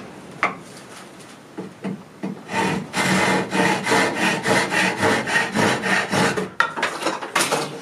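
A hand saw cutting through a small piece of wood: a few light knocks, then quick, even back-and-forth strokes, about three a second, from a couple of seconds in until near the end.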